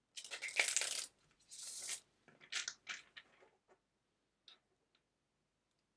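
A deck of tarot cards being shuffled by hand: two quick riffles of cards ruffling together, then a few shorter shuffling strokes and a faint click near the end as the deck is squared.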